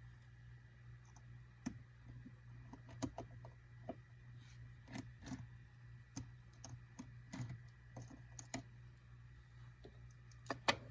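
Irregular light clicks and taps of small tools and metal parts as the display connector cover is fitted inside an iPhone 5c, over a faint steady low hum.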